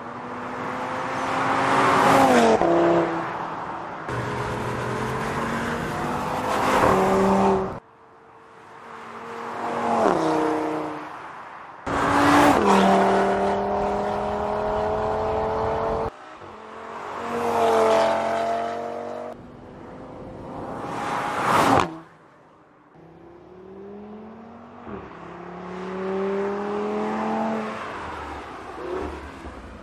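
Audi RS 3 Sportback's turbocharged 2.5 TFSI five-cylinder engine accelerating and passing by several times. Each pass rises in pitch, swells, then drops as the car goes by. The takes follow one another with abrupt cuts.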